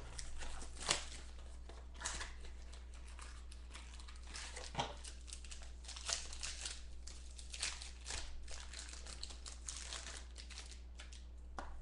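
Wrapping of a sealed trading-card box crinkling and tearing as it is opened, in irregular crackles and rips.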